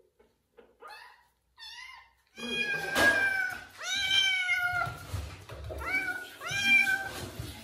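Month-old kitten meowing over and over in high, thin calls, faint at first and loud from about two and a half seconds in, the longer calls falling in pitch. It is hungry, calling for its milk.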